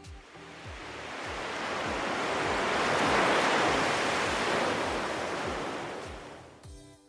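A rushing, surf-like noise swells up over about three seconds and fades away again, over background music with a steady kick-drum beat.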